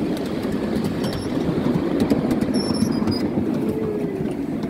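Miniature railway train running along the track: a steady rumble of wheels on rail with scattered light clicks.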